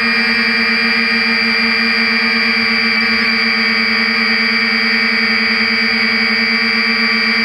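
3DR IRIS+ quadcopter's four electric motors and propellers in steady flight: a loud, unchanging buzzing hum with a high whine above it, pulsing slightly as the motors beat against one another.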